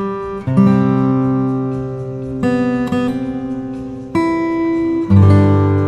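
Background music: an acoustic guitar strumming chords, a new chord struck every second or two and left to ring.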